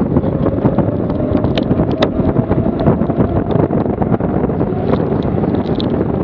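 Wind buffeting the microphone and tyre rumble on asphalt as a mountain bike descends a paved road at speed, with scattered rattling clicks from the bike. A faint hum creeps up in pitch as the speed climbs.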